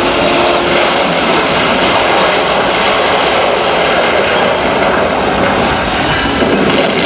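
Steady loud roar from a dark ride's show effects, a dense rumbling noise with no pauses, as red-lit steam or smoke erupts from the rockwork.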